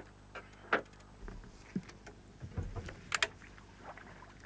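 Fishing tackle being handled on a boat: a few sharp clicks and knocks, with a quick double click about three seconds in and some dull low thumps in between, over a low steady hum.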